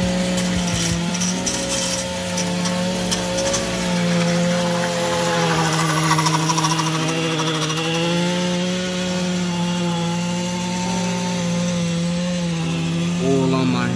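A small motor-driven power tool runs at a steady high pitch, its tone dropping briefly near the end.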